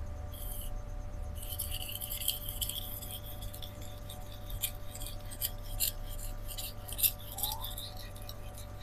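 Steel knife blade scraping across a fine 4000-grit Shapton Rockstar whetstone in light sharpening strokes: a thin, gritty hiss with small clicks, beginning about a second and a half in.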